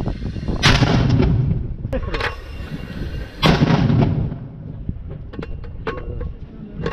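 82mm mortar firing twice, about three seconds apart, each a loud sudden bang with a ringing tail.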